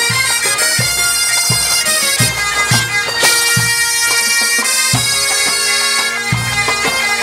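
Bagpipe band playing a march: a skirling melody over steady drones, with low drum beats underneath.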